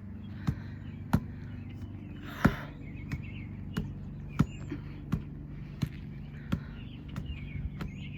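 A basketball tapped on the ground at each side of a Russian twist, giving sharp, evenly spaced knocks at about three every two seconds, one louder about two and a half seconds in. A steady low hum runs underneath.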